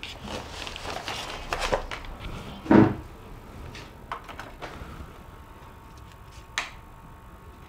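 Handling noise from setting up an amplifier test rig on a table: a few faint clicks and knocks, with one louder thump about three seconds in, over a low hiss.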